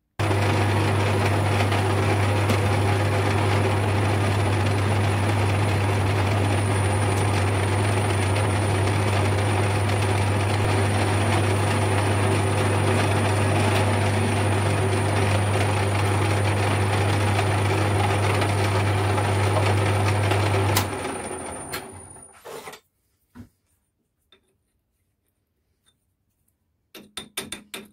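Metal lathe running with a steady motor hum while the tool counterbores an aluminium collar held in the three-jaw chuck. About 21 seconds in the lathe is switched off and spins down, followed by a few light clicks of parts being handled.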